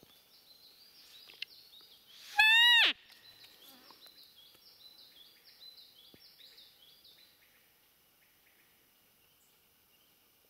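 Roe deer whistle call blown once, about two and a half seconds in: a loud, high peep of about half a second that drops sharply in pitch at its end. A small songbird then sings a quick string of high repeated notes.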